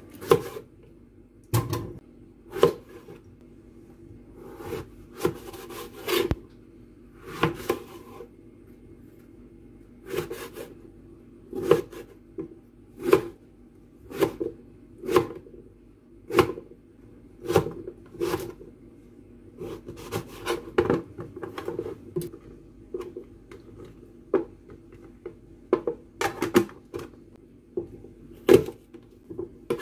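Kitchen knife chopping eggplant on a plastic cutting board: sharp knocks of the blade hitting the board, about one a second and irregular, with a quicker run of cuts about two-thirds of the way through.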